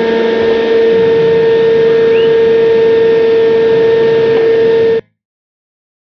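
Table-mounted router running at full speed with a steady high whine as a maple board is pushed past the bit, cutting a groove along its edge. The sound stops abruptly about five seconds in.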